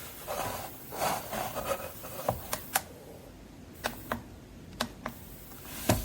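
Handling noise: soft rustling, then about eight short, sharp clicks and taps at uneven intervals, as of a small object being handled.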